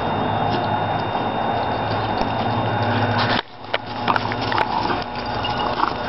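Steady background hum and hiss, which drops away suddenly about halfway through. Then come scattered crunching crackles of dogs' paws on dry fallen leaves as a French bulldog trots back with its frisbee.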